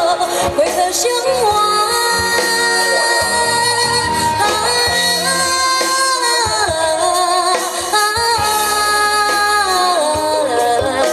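A live band playing a Chinese pop song while a woman sings the melody in long held notes that slide from one pitch to the next.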